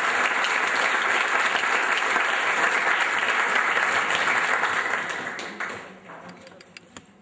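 Audience applause, dense and steady, dying away about five to six seconds in, followed by a few last scattered claps.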